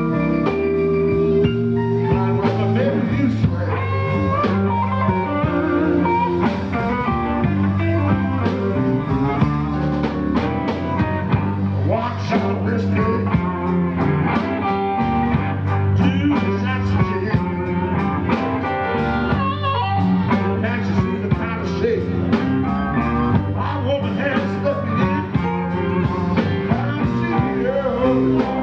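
Live blues band playing, with guitar and bass over a steady beat.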